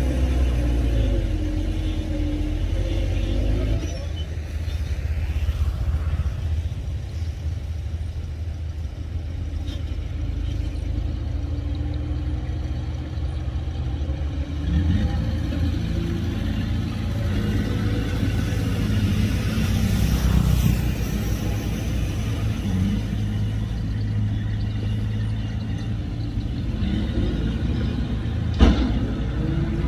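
Heavy diesel engines of earthmoving machinery running with a low rumble, the engine note rising and falling as they work. One sharp knock near the end.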